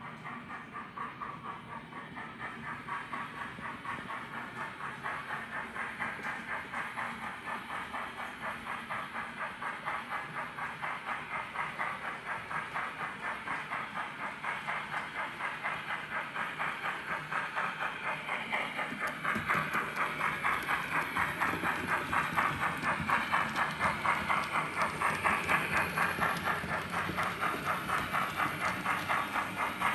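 Recorded steam-locomotive sound from the ESU Loksound V4 decoder in a Bachmann OO-gauge GWR 45xx Prairie tank: steady rhythmic exhaust chuffing with hiss, growing louder about two-thirds of the way through.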